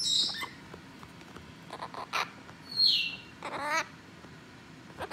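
Blue-crowned conure squawking in short bursts: a shrill call at the start, a downward-sliding screech about three seconds in, then a quick run of chattering notes.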